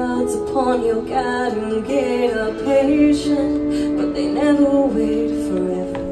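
A woman singing live to her own acoustic guitar; the voice slides up and down through several runs over held guitar chords.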